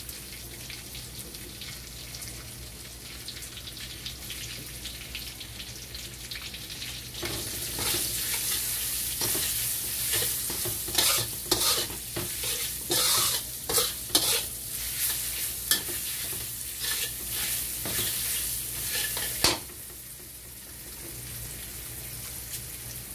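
Sliced mushrooms with shallot and garlic frying in oil in a wok, sizzling steadily. Through the middle a spatula stirs and scrapes them against the pan in quick strokes, then the sizzle goes on alone for the last few seconds.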